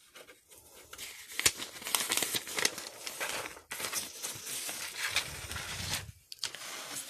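Paper store ad circular rustling and crinkling as its pages are handled and turned, starting about a second in.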